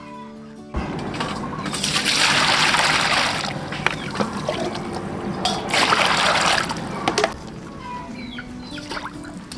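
Water splashing and swirling in a pot as water spinach is washed, with two louder surges of rushing water before it settles into small splashes. A second of music at the start cuts off as the water begins.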